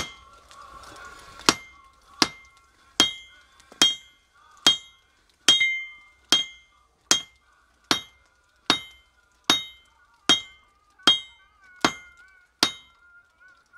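Blacksmith's hand hammer striking hot steel, a railroad spike being forged into a knife, on an anvil: about fifteen blows at a steady pace of a little more than one a second, each with a short metallic ring, starting about a second and a half in.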